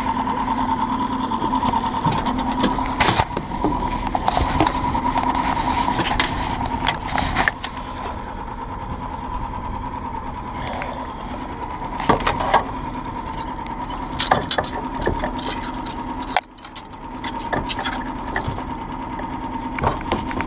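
Mercury outboard motor running steadily at low speed, with scattered clicks and knocks over it.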